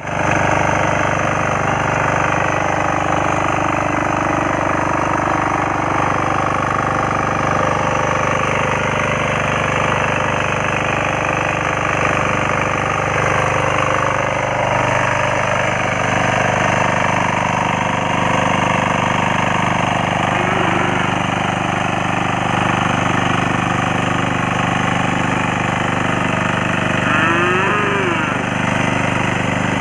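Power weeder's small engine running steadily under load as its rotary tines churn through flooded paddy-field mud. The engine note shifts slightly about halfway through.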